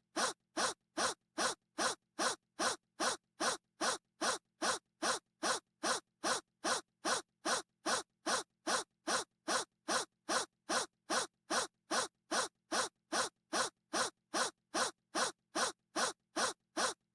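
A short breathy gasp repeated over and over at an even pace, a little over two a second, each one identical, like a looped clip.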